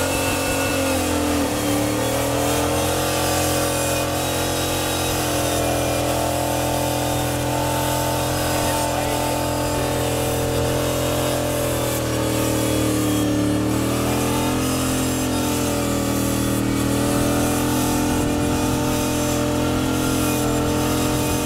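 Engine of a 4x4 off-road buggy held at high revs, its pitch slowly sagging and rising again twice, as its tyres spin and churn through deep snow with the buggy barely moving.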